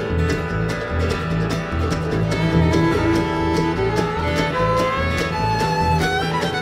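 Live bluegrass band playing an instrumental break: a fiddle carries the melody over strummed acoustic guitars and a steady upright bass beat.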